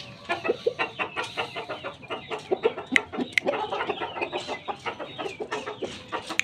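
Chickens clucking in a rapid run of short calls, with a few sharp clicks mixed in.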